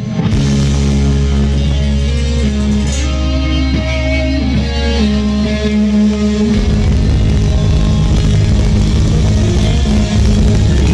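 Live rock band playing loud on electric guitars, bass and drums. Held chords give way about six and a half seconds in to a fast, driving rhythm.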